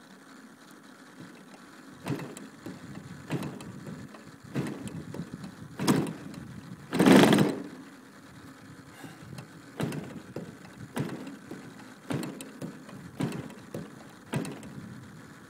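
DLE 55 single-cylinder two-stroke petrol engine being turned over again and again, about one stroke a second, each flip a short puff through the canister exhaust, with one longer, louder puff about seven seconds in, but it never catches: the engine is hard to start when warm.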